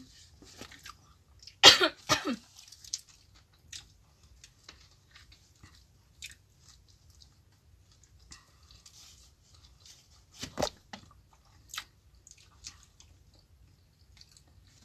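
People chewing and biting into sandwiches close to the microphone, with small crunchy, clicky mouth sounds throughout. A short, loud throaty sound like a cough comes about two seconds in, and another sharp loud sound comes about ten and a half seconds in.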